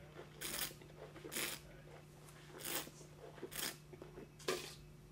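A wine taster's mouth and breath sounds while working the wine's finish: five short, breathy sucks or smacks of air, about a second apart.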